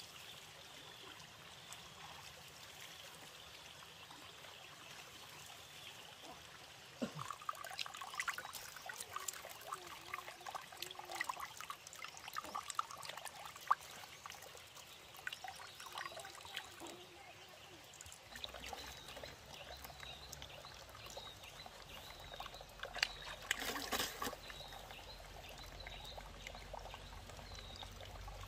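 Water trickling from a bamboo pipe into a plastic basin, with hand splashing as someone washes their hands and legs and rinses their mouth. The splashing starts about seven seconds in and comes in small, uneven splashes, with a louder burst of splashing near the end.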